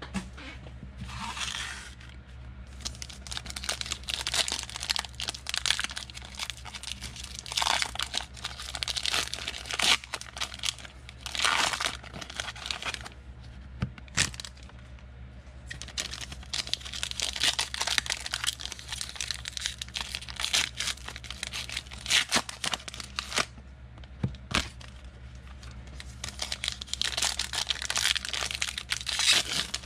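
Foil trading-card pack wrappers (Panini Contenders football packs) being torn open and crinkled by hand, in repeated crackling bursts.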